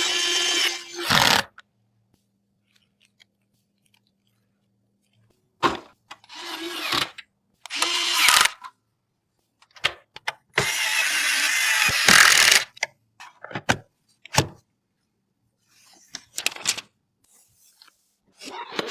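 Small electric screwdriver running in short bursts with silent pauses between them, mixed with scattered clicks and knocks of parts being handled.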